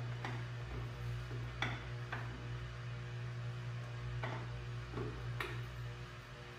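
Hand tools clinking and tapping on the steel of an old Bobcat skid steer's hydraulic filter area: about six short, sharp metal clicks spread over a few seconds, over a steady low hum.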